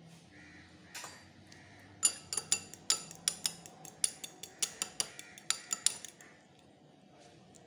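A utensil clinking rapidly against a small glass bowl as a raw egg is beaten, about five sharp, ringing clicks a second. The clicking starts about two seconds in and stops about six seconds in.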